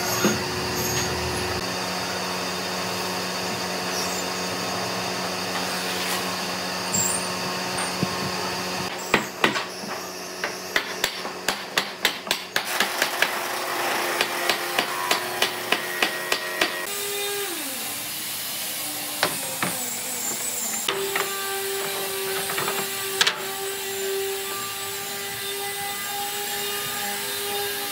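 A run of sharp hammer blows on wood, about two a second, from about nine seconds in until about seventeen seconds in, over a steady workshop hum.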